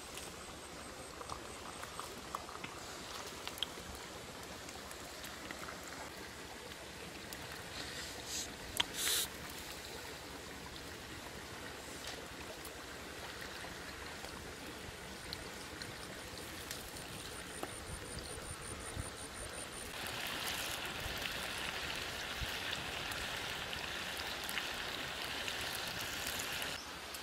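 A shallow rocky stream running steadily, with scattered small clicks and crackles over it. About three-quarters of the way through, a louder, higher hiss comes in for several seconds and cuts off abruptly shortly before the end.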